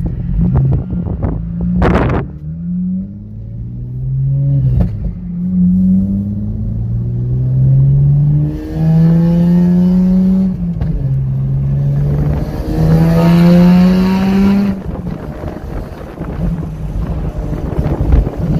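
2009 Honda Accord coupe's 3.5-litre V6 heard from inside the cabin, running through catless RV6 test pipes with the exhaust cutout closed, accelerating through the gears. The engine note climbs, drops at each shift and climbs again, several times over, then settles into a steadier drone near the end.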